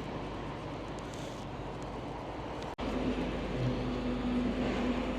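Steady rumble of outdoor traffic and engines. About three seconds in it cuts off abruptly and gives way to a louder, steady engine hum.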